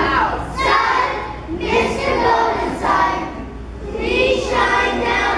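A group of young children singing together in phrases about a second long.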